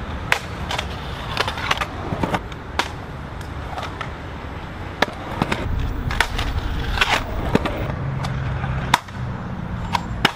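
Stunt scooter wheels rolling over rough concrete, broken by about a dozen sharp clacks and knocks from landings and impacts on the park's obstacles.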